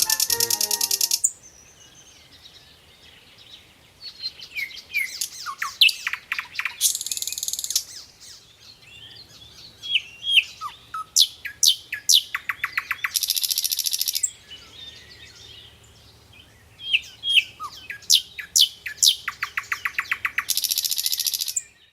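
Bird calls: quick falling chirps and fast buzzy trills in several bouts with short pauses between, cutting off suddenly near the end.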